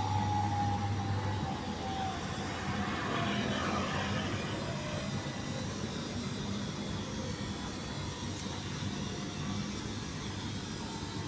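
Steady rumble of distant vehicle noise that fades slowly.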